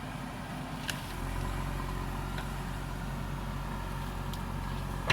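JCB backhoe loader's diesel engine running steadily, growing louder and deeper about a second in. A sharp metallic knock comes right at the end.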